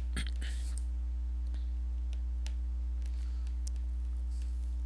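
Steady low electrical hum with faint, scattered clicks of a stylus tapping and stroking on a tablet or pen-display screen while handwriting.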